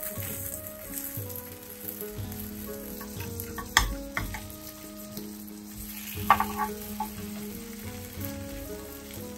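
Butter sizzling as idlis fry on a flat tawa. A steel spatula scrapes and clacks against the tawa twice, about four seconds in and again about six seconds in, as the idlis are flipped.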